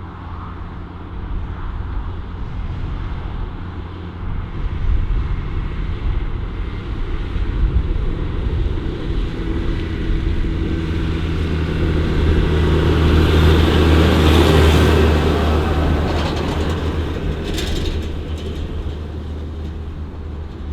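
JCB Loadall telehandler's diesel engine running while stacking bales, a steady low drone that builds up louder about two-thirds of the way through and then eases off again.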